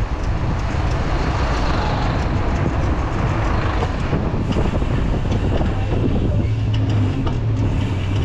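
Rushing road and wind noise from riding a bicycle through city traffic, with a steady low engine hum from a nearby motor vehicle coming in about two-thirds of the way through.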